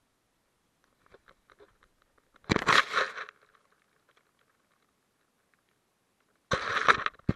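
Rustling and crunching close to the microphone in two loud bursts of about a second each, the first about two and a half seconds in and the second near the end, with faint clicks before the first.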